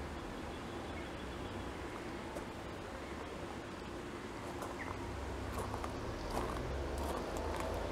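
Steady outdoor garden background noise with a low rumble, and a few faint short chirps and clicks in the second half.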